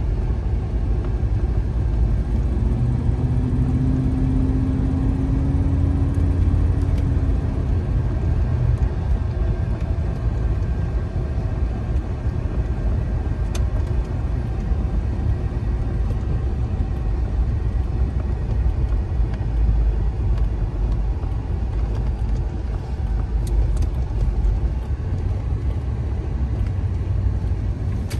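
Cabin sound of a 1992 Cadillac Brougham under way: the V8 engine and road noise make a steady low rumble. A humming tone comes in about three seconds in, rises slightly and fades out around eight seconds.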